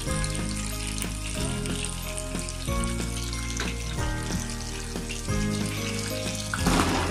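Hot oil sizzling steadily around two marinated pomfret shallow-frying in a pan over medium heat, with a brief louder burst near the end. Background music with slowly changing chords plays over it.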